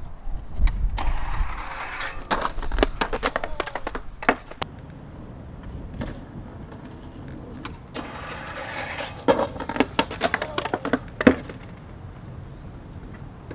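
Skateboard on concrete and a metal handrail, twice: a stretch of wheels rolling and scraping, then a run of sharp clacks and clattering as the board hits and bounces.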